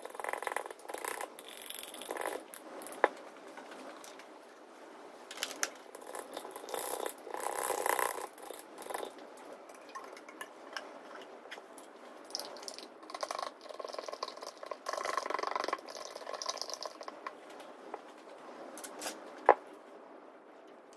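Brushes and sticks stirring and scraping paint in small metal paint tins, clinking against the tins, with a sharp click about three seconds in and another near the end.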